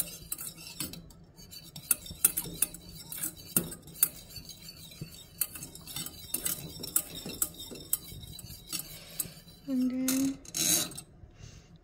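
Small wire whisk clinking and scraping against a stainless-steel saucepan as it stirs a thin sauce, in quick irregular taps. A short low pitched sound comes about ten seconds in, followed by a brief rustle.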